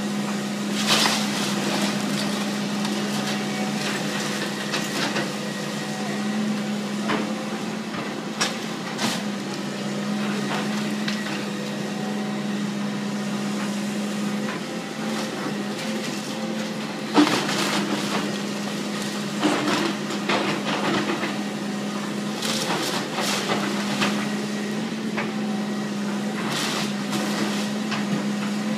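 Wooden house structure being demolished: irregular sharp cracks, knocks and splintering, the loudest about 17 seconds in, over a steady low engine hum.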